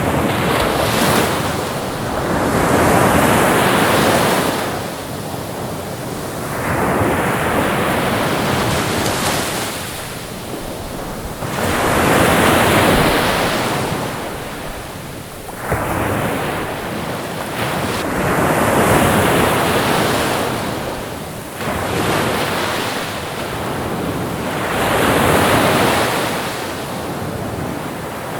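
Ocean waves breaking on a shore one after another, each surge of surf rising to a crash and washing back, a new wave every few seconds.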